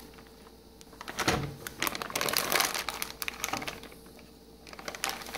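Anti-static bag crinkling and the irregular sharp clicks and taps of an MSI MEG X570 ACE motherboard being slid out of it and handled, in two clusters after a quiet first second.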